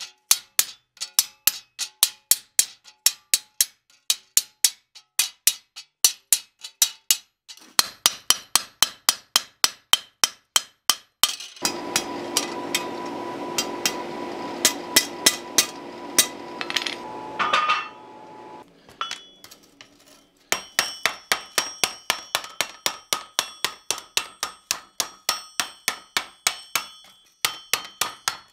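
Steady hammer blows, about three a second, on a cold chisel cutting red-hot sheet steel against the anvil. Midway there are several seconds of steady noise with a hum and no blows. Then comes a fast run of ringing hammer blows doming the hot steel jack-o'-lantern plate over a ring.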